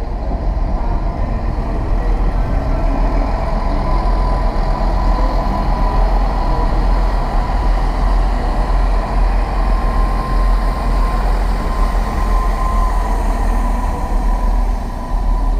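Class 166 Turbo diesel multiple unit pulling away and passing close by: its diesel engines run and its wheels rumble over the rails, with a thin steady whine from about four seconds in.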